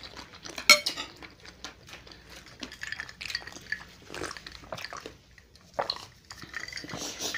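Close-miked eating sounds: chewing and mouth smacks, a scatter of short wet clicks with a brief pause a little past the middle, as spicy crab seblak with noodles and soaked crackers is eaten.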